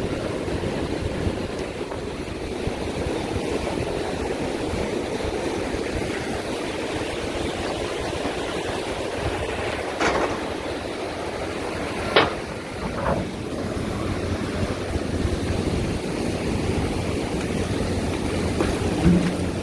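Ocean surf washing in and running up the sand, a steady rush of breaking waves. A sharp knock about ten seconds in and two more over the next three seconds.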